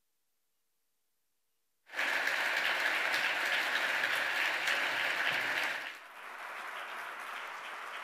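Large audience applauding, starting abruptly about two seconds in after near silence. The clapping is loud for about four seconds, then dies down to quieter clapping.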